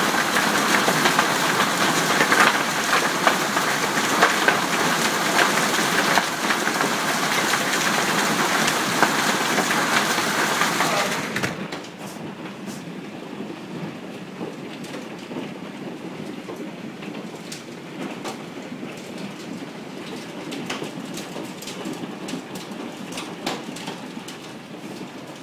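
Hail and rain pelting down in a loud, dense hiss of impacts. About eleven seconds in it cuts to a quieter steady patter with scattered separate clicks of hailstones striking.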